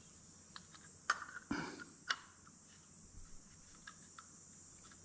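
Scattered light clicks and taps of small metal parts as the two halves of a Briggs & Stratton Flo-Jet carburetor, the upper body and the float bowl, are handled and fitted together. The loudest knocks come about one to two seconds in.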